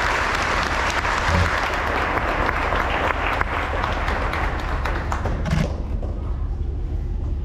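Audience applauding, a dense patter of many hands clapping, that stops fairly abruptly about five and a half seconds in, leaving a low steady hum.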